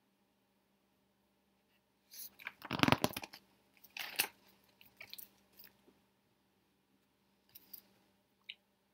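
A hardcover picture book's paper page being turned, with a loud crackly rustle about two seconds in, followed by softer rustles and taps as the book is handled and held up again.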